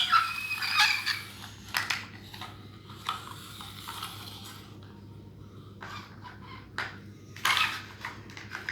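Irregular clicks and clattering knocks of small hard objects, loudest at the start and again near the end, over a faint steady hum.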